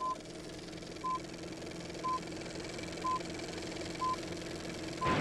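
Film-leader countdown sound effect: a short high beep once a second, six in all, one for each number counted down, over a steady hum and hiss.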